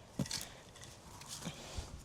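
Garden fork digging into soil: a sharp thud with gritty scraping about a quarter second in, then two softer thuds near the end.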